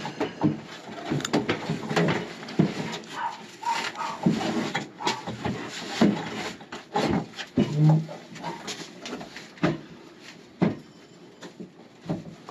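Irregular knocks and bumps of wooden boards being handled and set against wall framing, with a few short squeaks among them.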